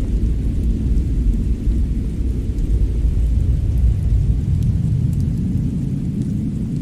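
Snowy-winter fireplace ambience: a steady low rumble with a few faint crackles, the low end easing slightly near the end.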